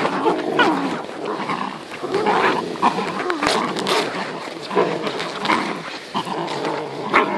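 Eight-week-old Belgian Malinois puppies growling in rough play as they wrestle and mouth at a person's legs, with short, irregular growls and yips.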